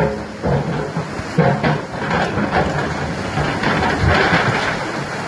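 Excavator working a rock bucket: the diesel engine runs under load beneath irregular crunching and grinding of rock and earth, with several sharper knocks.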